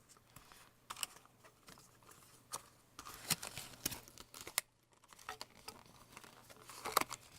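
Hands working loose the binding on a bundle of nylon-braided USB cables: faint, irregular crinkling and rustling with scattered small clicks.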